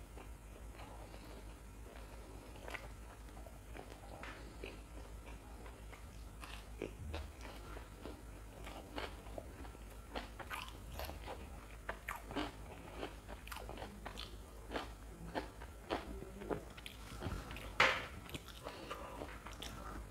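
Close-miked eating of a crisp fried lentil fritter (wade): crunching, biting and wet chewing with sharp mouth clicks. The crunches come sparsely at first, then more often in the second half, with the loudest crunch about two seconds before the end.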